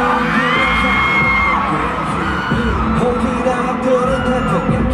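Live pop music over an arena sound system, with a heavy bass beat and high sung or shouted glides.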